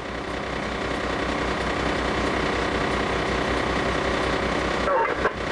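A fire engine's diesel engine runs steadily with a fast, even low throb, growing louder over the first second.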